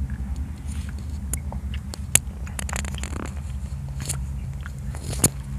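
A child chewing blackberries close to the microphone: scattered wet mouth clicks and smacks, sharpest about two seconds in and again near the end, over a steady low hum.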